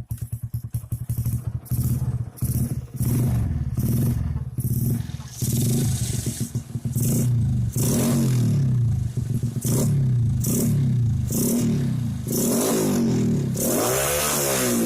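Honda C70 motorcycle with a swapped-in four-stroke single-cylinder engine, ticking over at idle and then revved with the throttle in repeated bursts that rise and fall in pitch. The bursts grow longer, with one long rev near the end.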